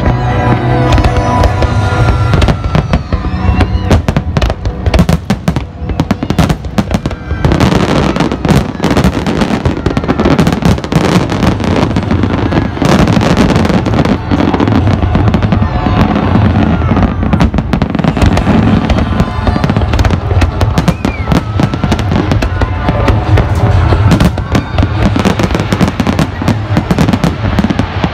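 An aerial fireworks display firing a rapid, dense barrage of shell bursts and crackles. It grows thicker and louder about seven seconds in, with music playing underneath.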